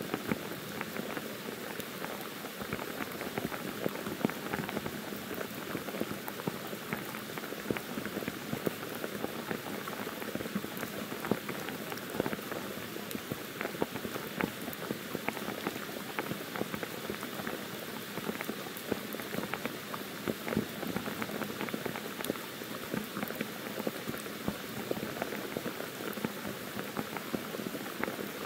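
Steady pouring monsoon rain on forest foliage: a dense hiss of rainfall full of many separate drop ticks.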